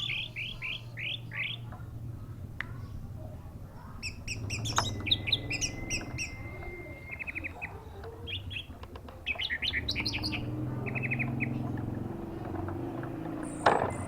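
Orange-headed thrush singing: quick runs of sharp chirps and short rapid trills with pauses between, over a low background rumble. A sharp knock comes near the end.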